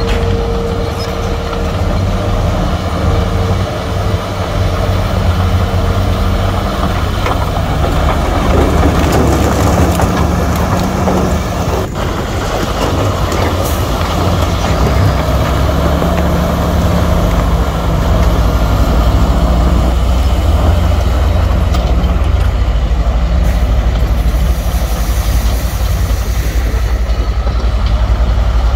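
Heavy diesel earthmoving machinery, dump trucks and bulldozers, running steadily under load; the low engine rumble grows heavier a little past halfway.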